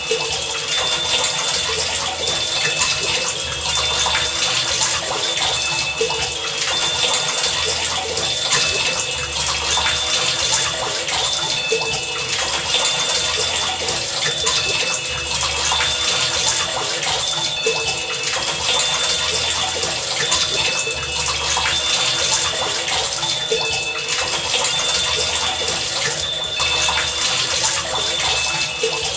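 Heavy rain falling steadily as a dense, even hiss. Short high tones and low hums come and go every second or two.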